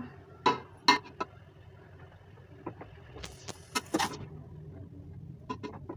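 Metal slotted spoon scraping and clinking against a steel cooking pot and a plate while serving out rice: scattered short clicks and scrapes, with a denser run of them around three to four seconds in.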